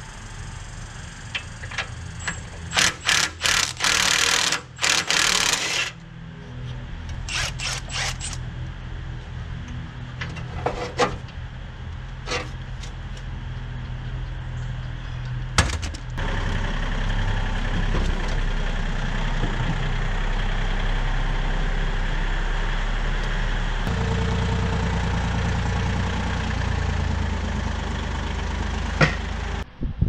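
A steady low motor-like hum that grows louder about halfway through and again later, with scattered sharp clicks and rattles of hand work, thickest in the first several seconds.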